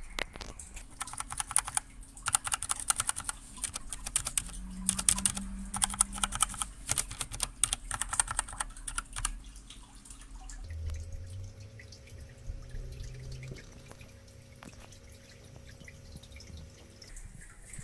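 Keys being typed on a Redragon Draconic K530 mechanical keyboard, with rapid clicking keystrokes for about nine seconds, then only occasional keystrokes.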